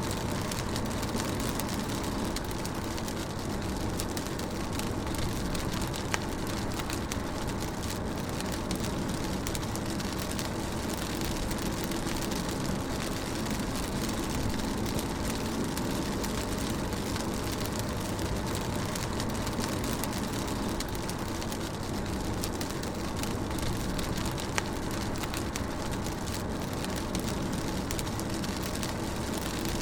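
Rain hitting a moving car's roof and windshield, heard from inside the cabin over a steady low rumble of road and engine noise. Two drops land sharper and louder than the rest.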